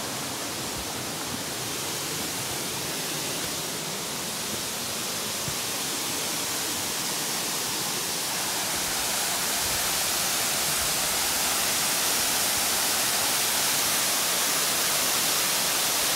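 Waterfall rushing: a steady hiss of falling water that swells louder about halfway through.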